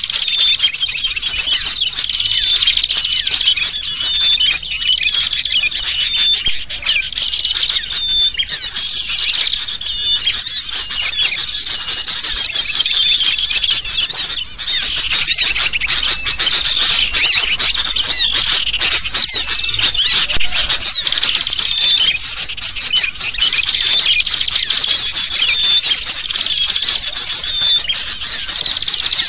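Bird-lure recording of noisy, agitated sooty-headed bulbul (kutilang) calls mixed with chirps of assorted small birds: a dense, loud chatter of high calls, with a phrase recurring every couple of seconds.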